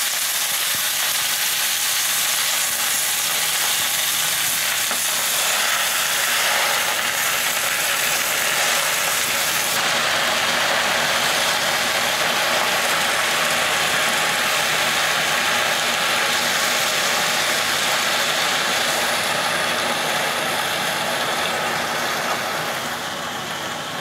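Goji leaves sizzling in hot oil in a stainless steel pan as they stir-fry, a loud steady hiss that eases a little near the end.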